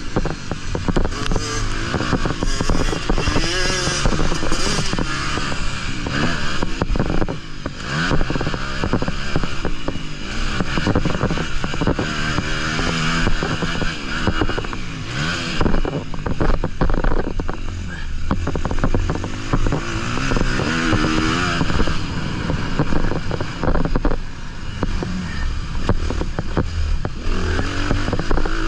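Honda 250 motocross bike's engine revving hard and easing off over and over as it is ridden round a dirt track, its pitch climbing and dropping with each throttle and gear change, heard close up from the bike's own onboard camera.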